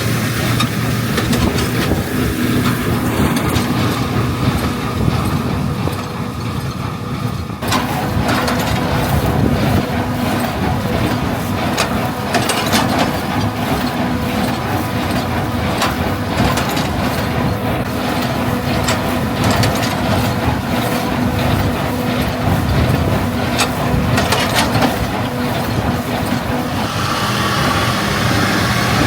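Farm machinery working in straw: a diesel tractor engine running steadily under mechanical clatter and repeated knocks. The sound changes abruptly about eight seconds in and again near the end, as from one machine to another.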